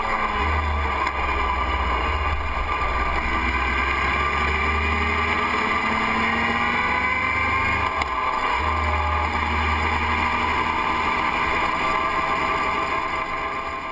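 Motorcycle engine running at road speed, its pitch drifting up and down slightly with the throttle, under heavy wind buffeting on the bike-mounted microphone. The sound fades down near the end.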